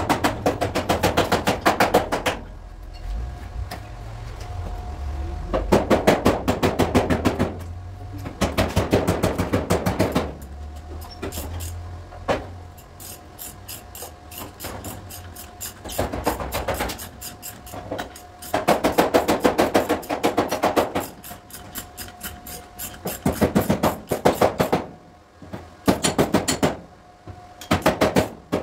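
Rapid hammer taps on car body sheet metal, coming in quick runs of one to two seconds with short pauses between, over a faint steady hum.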